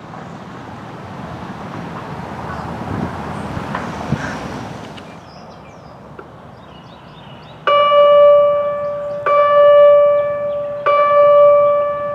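Modulator 4016 electronic outdoor warning siren sounding its alert chimes over its loudspeakers: three ringing chime tones at the same pitch, about a second and a half apart, starting a little past halfway. This is the attention signal that opens a test, ahead of the voice message. Before the chimes there is a few seconds of steady background noise.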